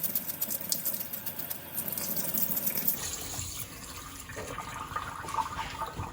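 Tap water running and splashing into a sink, shutting off about three seconds in, followed by quieter wet handling sounds.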